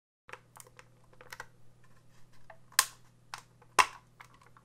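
Small plastic clicks as the clipped-on top shell of a DJI Mavic Pro drone is worked loose with a pry tool, with two sharp snaps, about a second apart, as clips pop free.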